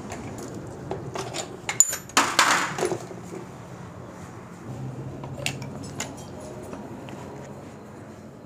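Metal clinks and rattles of tools and parts at a motorcycle's front wheel hub and axle as the wheel is being taken off. The clinks come in a cluster loudest about two seconds in, with a couple of single clicks later.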